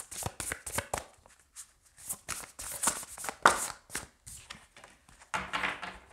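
A deck of oracle and tarot cards shuffled by hand: a rapid, uneven run of papery flicks and snaps.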